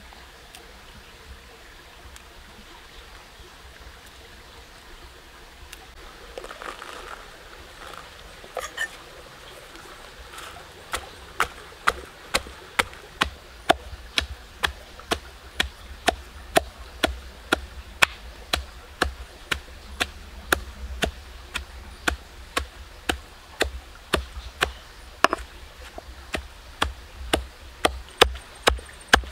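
Wooden pestle pounding red chillies in a stone mortar: sharp, regular strikes about two a second, starting about ten seconds in after a stretch of soft handling noises.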